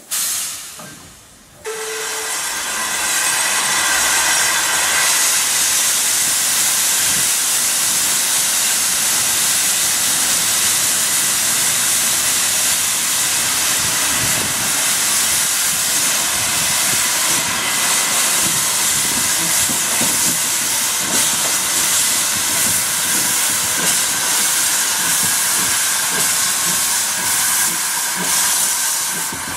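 Andrew Barclay 0-4-0 saddle tank steam locomotive blowing steam through its open cylinder drain cocks: a loud, steady hiss that sets in about two seconds in and holds.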